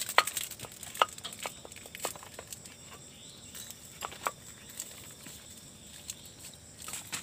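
Scattered light clicks and taps of hands working with bowls and food packets, close together at first and then further apart.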